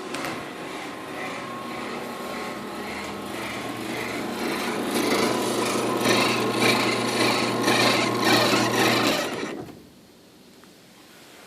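Chamberlain Whisper Drive belt-drive garage door opener running with a steady motor hum and an annoying squeal that repeats a little more than twice a second, growing louder as it goes. The motor cuts off suddenly about two seconds before the end.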